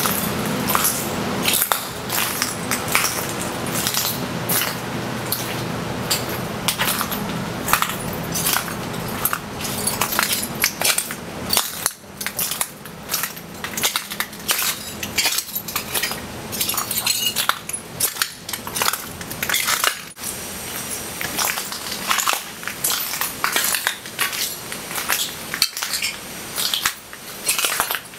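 Footsteps crunching over shards of hail-broken greenhouse glass, each step giving a burst of crisp crunching and clinking. A low steady hum runs underneath during the first half.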